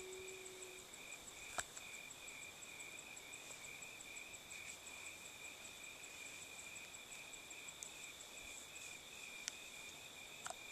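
A human imitation of a wolf howl slides down in pitch and fades out within the first second. After it a faint, steady chorus of insects trills on, with a couple of soft clicks.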